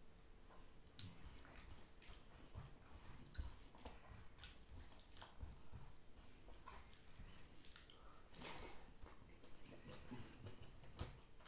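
Faint, irregular wet clicks and squishes of cooked rice being mixed with curry by hand on a banana leaf, along with mouth sounds of chewing.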